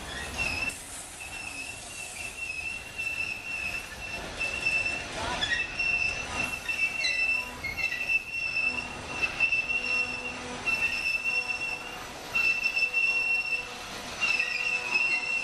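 Union Pacific freight train's boxcars rolling past, their steel wheels squealing on the rails in a high steady tone that comes and goes every second or two, over the rumble of the moving cars.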